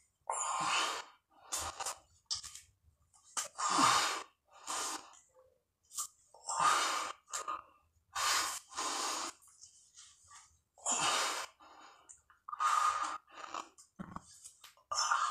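A man breathing hard through his mouth in heavy, uneven breaths about once a second: the strain of a long push-up set, well past a hundred reps on the way to 200.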